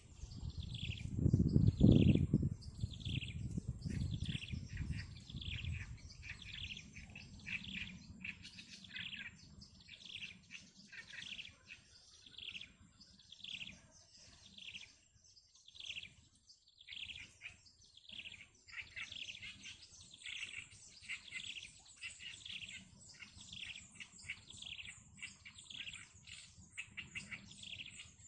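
Newly hatched chicks in the nest cheeping: a steady run of short, falling, high-pitched peeps, about two a second. A low rumble sounds over the first few seconds and is loudest about two seconds in.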